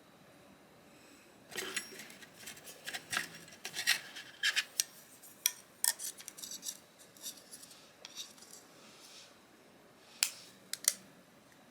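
Small metal clicks, clinks and scrapes of a Zero Tolerance 0562CF folding knife's parts being handled and fitted together during reassembly, in irregular bursts from about a second and a half in, with two sharp clicks near the end.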